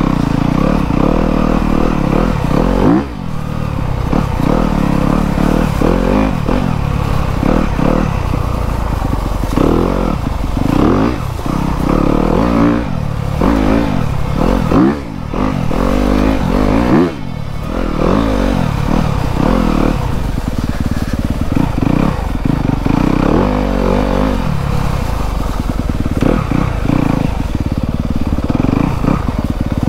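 2024 Yamaha YZ250FX's 250 cc four-stroke single-cylinder engine running under the rider's throttle at low trail speed, its revs rising and falling again and again, with a few short drops as the throttle is let off.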